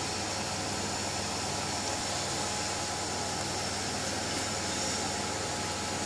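A steady hum and hiss from a running motor, even and unchanging, with a faint low drone under it.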